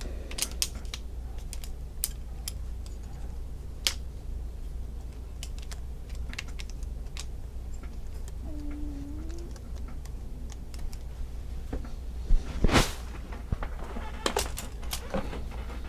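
Scattered clicks and light clatter of a folding camp table's metal tube leg frame being worked open by hand, with a louder burst of clacks about three-quarters of the way through.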